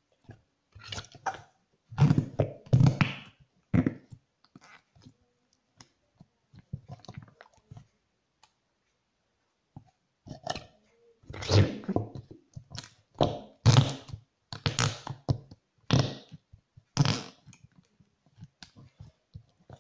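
Blue slime pressed and pumped into a plastic tub, trapping air and letting it out in wet, squelchy fart noises. A few come in the first four seconds, then after a quieter gap a quick run of louder ones from about ten seconds in.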